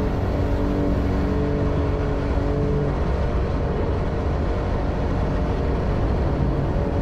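Jet boat under way, its engine running with a steady drone over the rush of water and wind.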